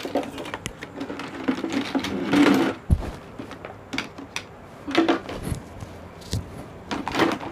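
Plastic toys clattering and knocking as they are rummaged out of a plastic basket and handled, with a dull thump about three seconds in and a few brief murmurs of a voice.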